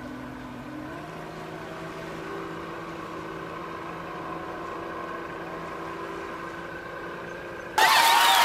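Outboard motor of a small metal work boat running steadily, its pitch stepping up about a second in as it picks up speed. Near the end it cuts off suddenly to much louder crowd voices.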